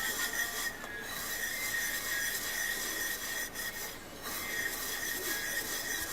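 Stainless steel scrubber scouring a cast iron skillet with a coarse salt and water paste to take off surface rust: steady, continuous rubbing.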